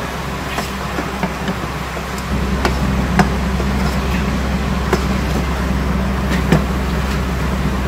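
A spatula stirring minced meat and sliced onions in a metal pot, with scattered knocks of the spatula against the pot. Under it runs a steady low hum that gets louder about two seconds in.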